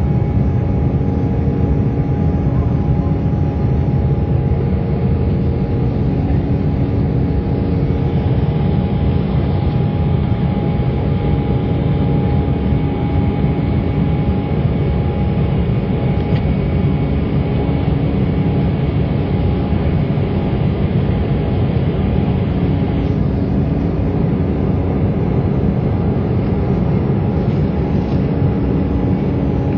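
Airliner cabin noise during climb after takeoff: the jet engines and rushing air make a steady deep rumble, with a few constant hum tones running through it.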